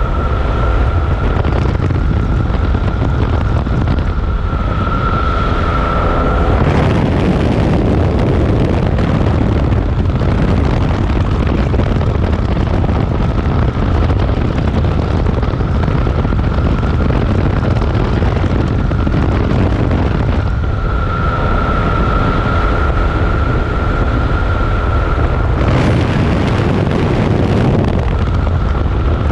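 Loud steady rumble of a moving vehicle with wind noise on the microphone. A high whine comes and goes over it, strongest about five seconds in and again after twenty seconds.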